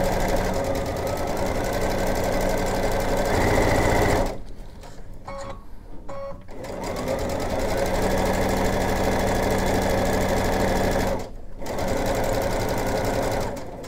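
Sewing machine stitching a seam along a zipper at a steady speed. It stops about four seconds in, starts again a couple of seconds later, and pauses briefly once more near the end.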